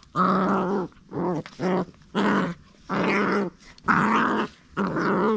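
Beagle puppy growling in a series of about seven short, rough growls, each under a second, with brief pauses between them.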